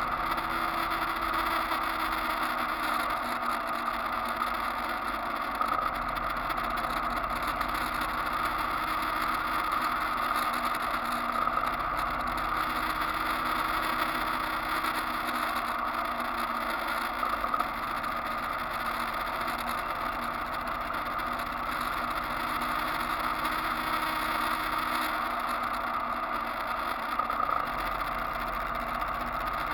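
Steady drone of a vehicle cruising along a road: engine running at an even speed under constant wind and road rush, with no sudden sounds.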